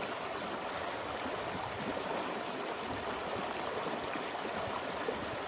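River water rushing steadily over rocks in shallow rapids, an even unbroken rush, with a thin steady high-pitched whine running along with it.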